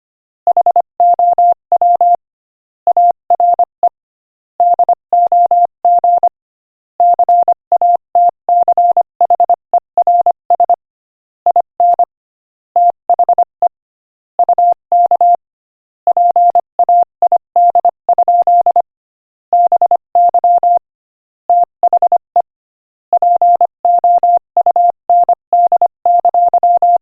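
Morse code sent at 25 words per minute as a single steady beeping tone, keyed in quick dots and dashes, with short silent gaps between letters and words.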